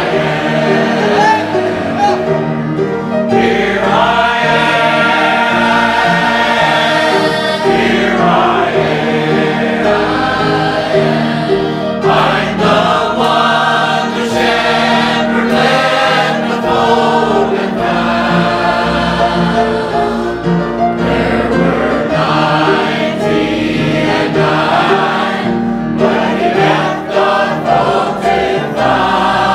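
Mixed church choir, men's and women's voices together, singing a gospel hymn with long held notes.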